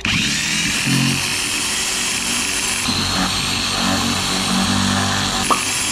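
Electric hand drill running at speed, boring a hole through a motorcycle helmet's shell. It starts abruptly, and its whine shifts in pitch about three seconds in and again near the end.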